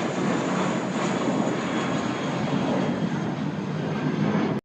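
Jet airplane passing over, its engines making a loud, steady rushing noise with a faint high whine on top.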